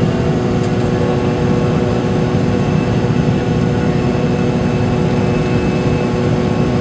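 Cabin noise of an MD-83 airliner in its climb: the steady sound of its rear-mounted turbofan engines and rushing air, with a few held engine tones over it.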